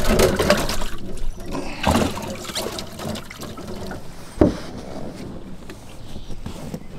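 Water splashing and trickling as a freshly caught bass is handled in a boat's livewell, with one sharp knock about four and a half seconds in.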